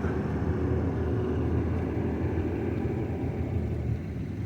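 A steady low rumble, easing slightly near the end.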